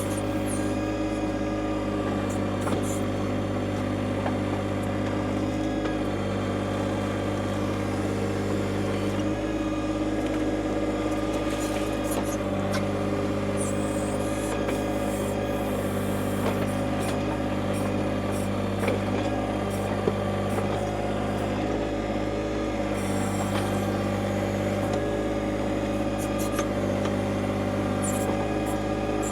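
John Deere 2025R compact tractor's three-cylinder diesel engine running steadily while it works the backhoe, its note shifting every few seconds as the hydraulics take load, with a few sharp knocks.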